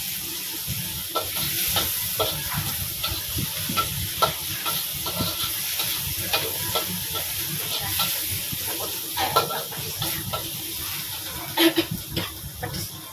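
Chopped chilies and shallots sizzling in oil in a wok while a metal spatula stirs and scrapes through them, with frequent clicks of the spatula against the pan. A few louder knocks come near the end.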